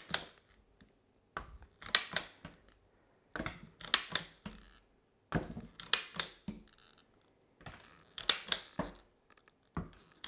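Plastic Pampered Chef cookie press clicking as its trigger is squeezed to push out spritz cookie dough, one squeeze per cookie. The clicks come in short groups about every two seconds, six groups in all.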